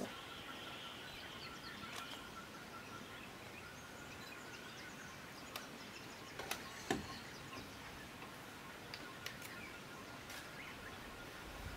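Faint natural outdoor ambience: scattered bird chirps over a thin steady high tone, with a couple of short knocks near the middle.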